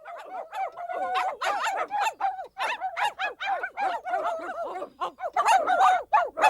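Cartoon puppies yipping and whining: a quick run of short, high calls that rise and fall, several overlapping, as from a whole litter.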